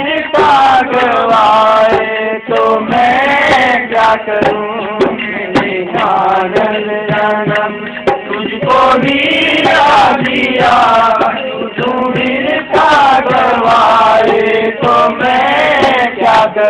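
Men singing a Hindi devotional bhajan together, accompanied by steady strokes on a dholak barrel drum.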